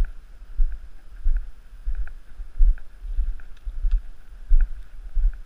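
Walking footsteps jolting a handheld camera: low thumps about one and a half per second, each with a light click.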